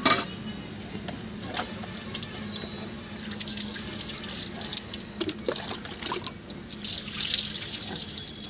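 Water splashing over a plucked duck and onto a wet concrete floor as the bird is rinsed, getting louder in the second half. A sharp knock at the very start.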